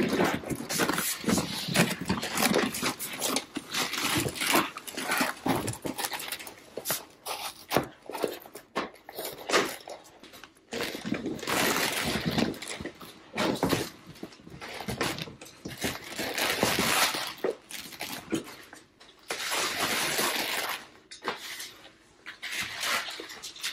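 Ruggable rug pad and washable rug cover being unrolled, dragged and spread over a wood floor: irregular rustling and swishing in bursts of about a second, with scattered clicks and knocks.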